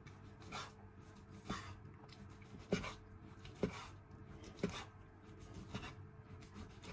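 Chef's knife slicing through a boiled chicken breast and knocking on a cutting board, a stroke about once a second.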